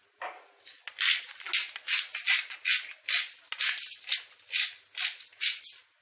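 A seasoning shaker rattling, shaken in quick strokes about three times a second over a rack of boiled pork ribs to season it.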